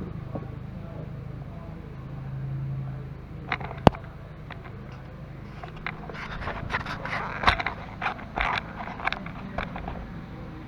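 Hard objects clattering and scraping, with a few sharp knocks, over a steady low hum; a couple of clicks come first, and the clatter is busiest in the second half.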